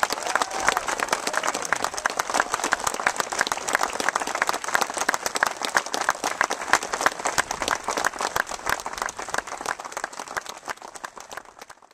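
Audience applauding: many hands clapping steadily, easing slightly and then cutting off abruptly near the end.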